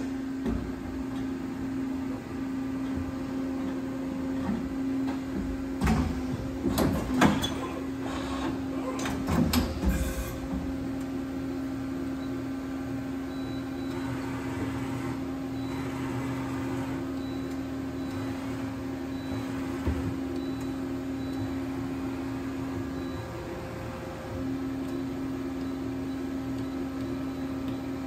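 Okuma MC-40VB CNC vertical machining center powered up, giving a steady hum that drops out briefly about 23 seconds in. A cluster of mechanical clunks and clatter comes between about six and ten seconds in.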